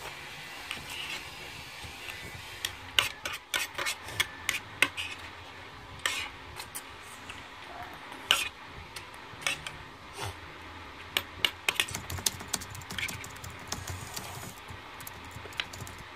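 Spoons and forks clicking, tapping and scraping against plastic plates during a meal, in irregular scattered clicks that come thickest a few seconds in.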